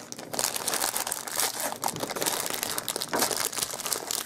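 Clear plastic candy wrapper crinkling and crackling as hands unwrap a soft twisted candy bite.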